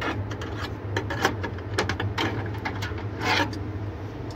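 Handling noises at a refrigerator's freezer evaporator coil: a string of light clicks and scrapes from a hand working metal parts at the defrost heater and drain trough, with a longer scrape a little past three seconds in. A steady low hum runs underneath.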